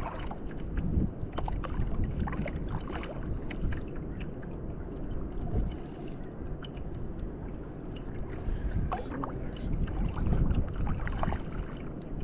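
Double-bladed paddle dipping and splashing beside a clear-bottomed kayak, with water lapping at the hull in scattered small splashes over a low wind rumble on the microphone.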